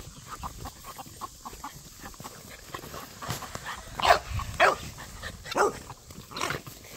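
American Bully puppies barking and yipping while play-fighting: about five short calls in the second half, starting about three seconds in.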